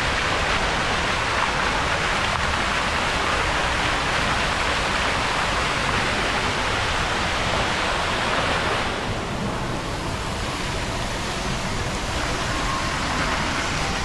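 Steady rushing noise inside an airliner cabin, easing slightly about nine seconds in.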